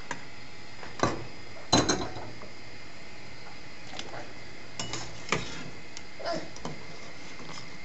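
Metal slotted spoon clinking and knocking against a stainless steel pot and a glass bowl while boiled vareniki are lifted out: a handful of sharp clinks, the loudest pair about two seconds in, over a steady low hiss.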